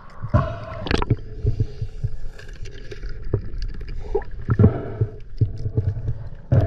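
Underwater sound picked up through a camera housing: water moving over it in a low, uneven rumble, with irregular knocks and clicks, the sharpest about a second in and just before the end.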